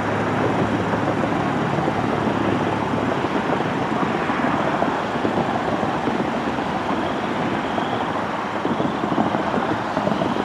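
Airbus A350's Rolls-Royce Trent XWB jet engines making a steady roar as the airliner passes low overhead on landing approach with its gear down. A faint high whine rises slightly about two-thirds of the way through.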